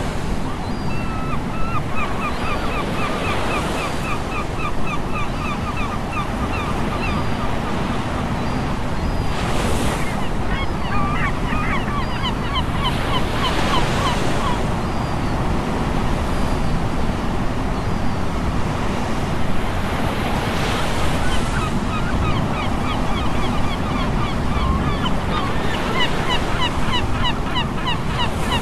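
Surf breaking and washing on a beach, with wind buffeting the microphone. Over it come several runs of rapid, repeated high bird calls, each run lasting a few seconds.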